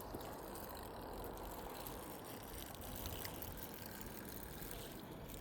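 Steady low background rumble with no distinct events, with a small click right at the start.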